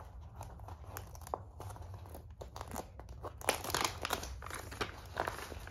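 Protective cover sheet on a diamond painting canvas crinkling as it is peeled back from the adhesive and handled, a run of soft rustles and crackles that gets busier and louder about three and a half seconds in.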